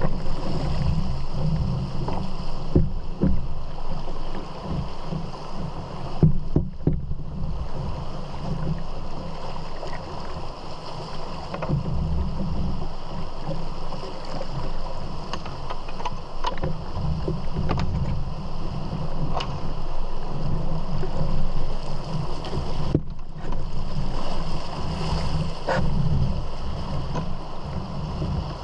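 Rushing water of shallow class 1 river rapids around a canoe, with wind buffeting the microphone and a few scattered light knocks.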